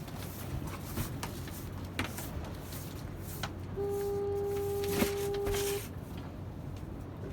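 Boat engine running with a steady low hum, with scattered knocks and clunks from gear being handled on deck. About four seconds in, a steady pitched tone sounds for about two seconds, and a sharp knock, the loudest sound, falls in the middle of it.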